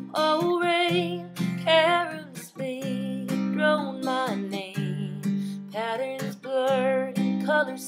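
Acoustic guitar strummed in steady chords under a solo singing voice that holds notes with vibrato.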